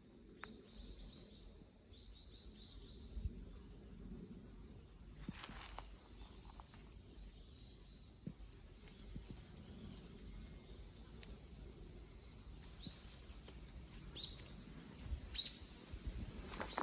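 Small birds chirping now and then over quiet outdoor ambience: a few short high calls in the first three seconds and several more near the end, with a brief rustle about five seconds in.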